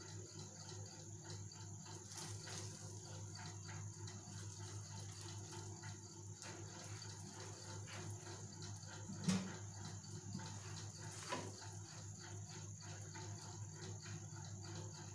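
Egg mixture and bread faintly sizzling in butter on a hot tawa, over a steady low hum. A single knock about nine seconds in, and a fainter one about two seconds later.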